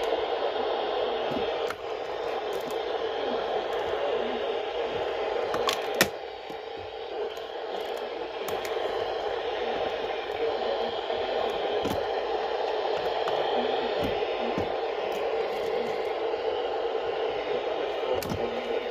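Steady radio static hissing from a weather radio's speaker, with a few sharp clicks, the loudest about six seconds in.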